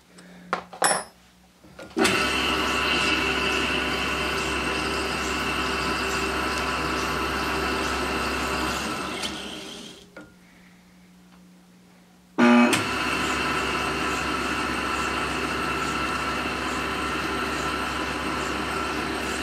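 Milling machine spindle running steadily under power as it drives a tap into a 5/16-24 hole in a metal ring. About ten seconds in, the motor winds down and stops. A couple of seconds later it starts again abruptly, backing the tap out of the threaded hole. A few light clicks come before it starts, as the tap holder is tightened.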